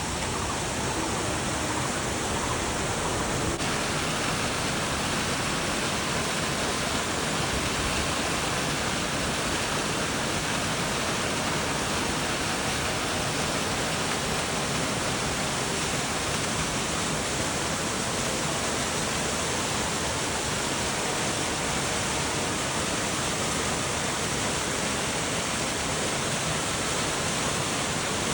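Steady rush of a waterfall, an even roar of falling water, a little brighter in the treble from about three and a half seconds in.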